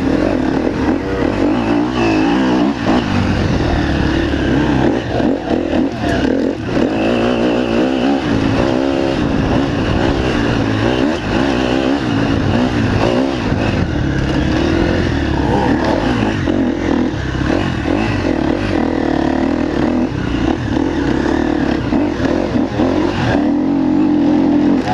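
Enduro motorcycle engine running hard on a dirt track, heard from on the bike, its revs rising and falling continually as the rider accelerates, shifts and backs off.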